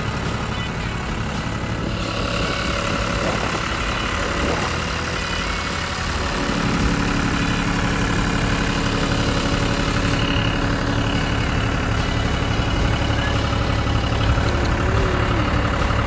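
John Deere tractor's diesel engine running steadily as the tractor creeps forward. It grows louder about six seconds in, with a steadier low hum as the revs or load come up.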